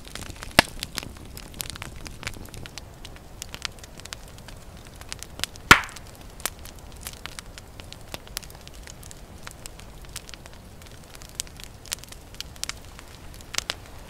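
Wood campfire crackling and popping in irregular snaps, with one loud pop a little before the midpoint.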